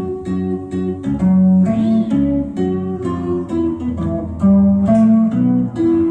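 Chapman Stick and chromatic harmonica played live as a duo: a steady run of tapped bass and melody notes on the Stick's strings, with harmonica tones over them.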